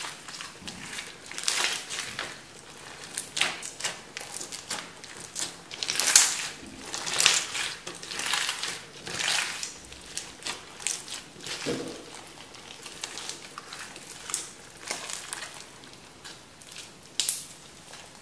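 Hands squeezing, pressing and stretching a beaded slime packed with small beads, making an irregular run of crackles and pops. The loudest come about six to nine seconds in.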